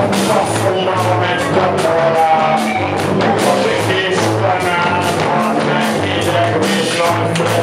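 Live rock band playing: a man singing into a microphone over electric guitar and a drum kit, the drums hitting in a steady even beat.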